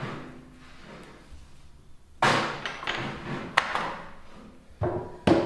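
Lumps of soft clay torn off a block and thumped down on a wooden worktable: one loud thud about two seconds in and two more near the end, with a few lighter knocks between.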